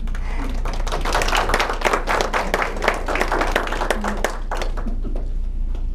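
Audience clapping by hand, dense uneven claps that build up over the first second and die away about five seconds in.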